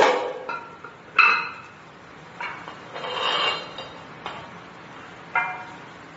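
Several light metallic clinks and knocks, a few with a brief ringing tone; the sharpest is about a second in, another about five seconds in.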